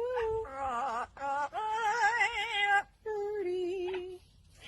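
A voice singing long held notes with a slow wavering pitch, several in a row with short breaks between them.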